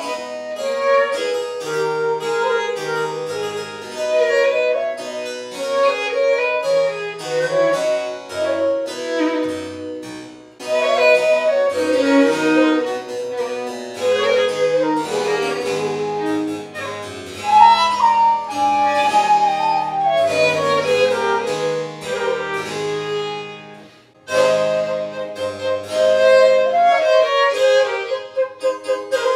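Baroque chamber trio of traverso, baroque violin and harpsichord playing an 18th-century French minuet, the harpsichord's plucked chords under the violin and flute melody. The music briefly falls away twice, about ten and twenty-four seconds in, then picks up again.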